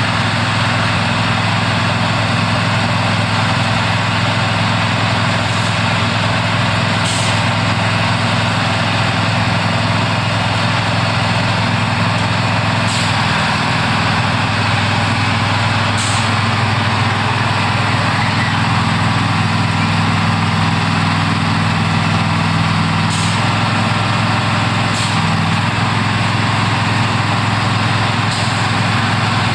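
Heavy diesel engine of railroad track machinery running steadily at a constant pitch. Short hisses of air break in every few seconds, about seven times.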